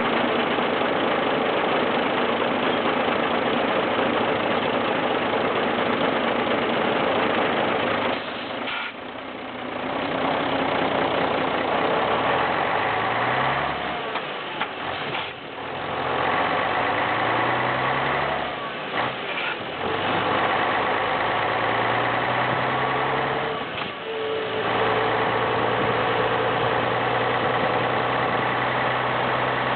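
Pegaso 310 truck's diesel engine running under way, with four short drops in the engine note where the throttle is lifted, and the pitch climbing again between them as the engine pulls through the gears; it settles to a steady note near the end.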